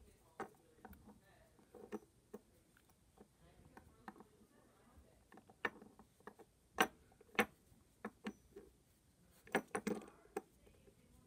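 Light irregular clicks and knocks of a plastic fidget spinner and a plush toy being handled on a wooden floor, with two sharper knocks about two-thirds of the way through and a quick cluster of taps near the end.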